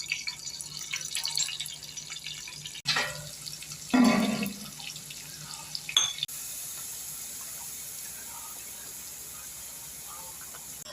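Masala frying in a pan while being stirred, crackling, then a splash of liquid about three seconds in, followed by a steady even sizzle.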